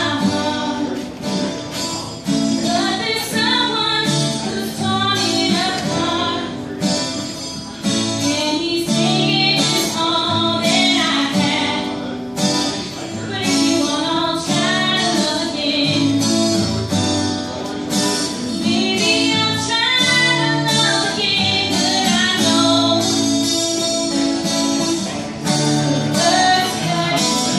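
A woman singing live into a microphone, with a man accompanying her on a strummed acoustic guitar.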